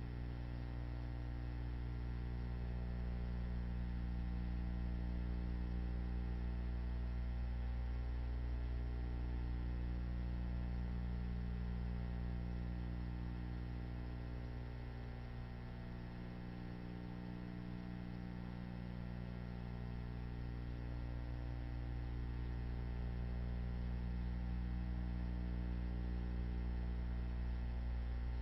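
Steady electrical mains hum with a stack of overtones, dipping slightly in level about halfway through.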